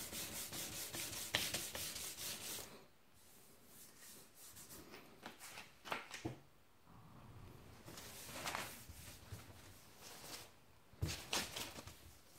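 Hand sanding and rubbing on a painted aluminium car hood: quick back-and-forth strokes of 400-grit sandpaper feathering the hard edge of the paint for the first few seconds. Then quieter rubbing and wiping with a cloth over the panel, with another short run of strokes near the end.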